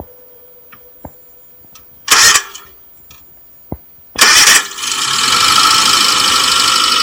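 Suzuki Samurai's G13BA 1.3-litre four-cylinder engine cranked briefly about two seconds in, then cranked again about four seconds in and catching, settling into a steady run.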